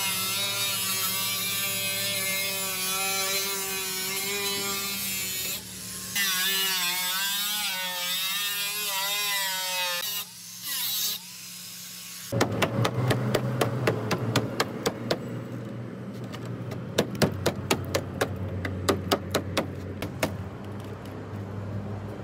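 Electric angle grinder running against the rusted sheet metal of a van's wheel arch, its whine steady at first and then wavering in pitch as the disc bites and is loaded. After a short break, a long run of sharp, irregular clicks and snaps over a low hum.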